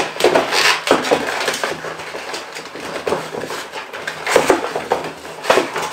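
Cardboard box and its paper contents rustling and scraping as hands rummage inside the box, with several sharp knocks and taps as the box shifts on the table.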